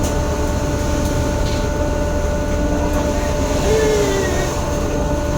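Fishing boat's engine droning steadily, a low rumble with a constant hum. About four seconds in, a brief tone slides up and back down over it.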